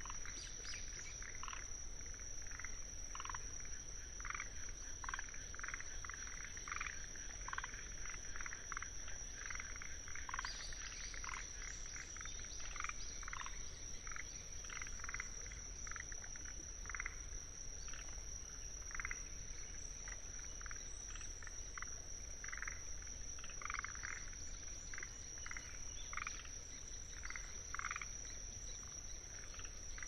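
A chorus of forest green tree frogs (Rhacophorus arboreus) calling in short notes, several a second at irregular spacing. Under them runs a steady, unbroken high-pitched trill of kinhibari crickets (Anaxipha pallidula).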